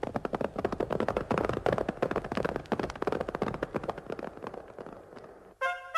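Radio-drama sound effect of several people's footsteps walking off, a dense irregular clatter that fades away. Near the end a trumpet fanfare starts.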